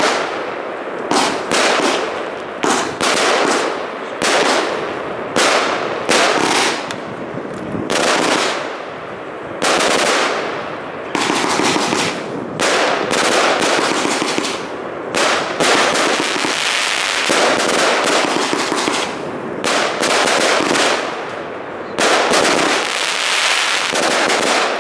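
Heron Bad Wolff 1.2 kg firework cake firing shot after shot, about one every second: launch thumps and shells bursting with a crackling tail.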